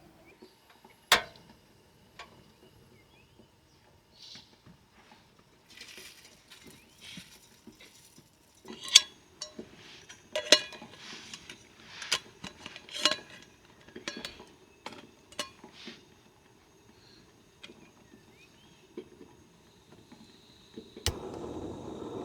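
Camp cookware and utensils handled: a handful of sharp metallic clinks and knocks with short ringing, spread out between quieter rustling.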